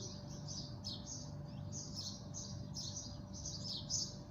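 Small birds chirping continuously, a quick run of short high-pitched chirps several times a second.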